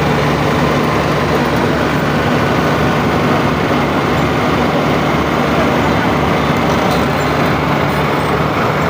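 Street traffic noise with a vehicle engine running close by, a steady low hum under a loud, even wash of road noise.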